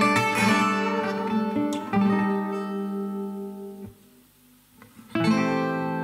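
Background music on acoustic guitar: plucked notes and strummed chords ringing out, with a brief near-silent pause a little after the middle before a new chord comes in.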